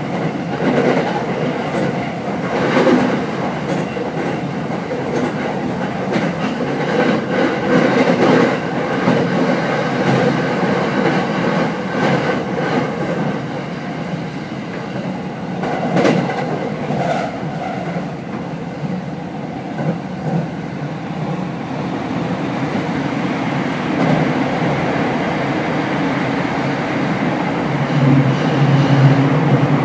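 Running noise heard from inside a Tokyo Waterfront Area Rapid Transit 70-000 series trailer car under way: a steady rumble of wheels on rail, with wheels clicking over rail joints now and then. As a trailer car it has no traction motors, so no motor whine is heard. A louder low drone comes in near the end.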